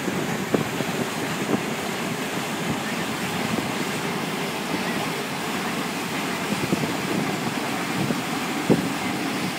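Wind buffeting the microphone in gusts over a steady rush of wind and water, heard on the open top deck of a moving river cruise ship.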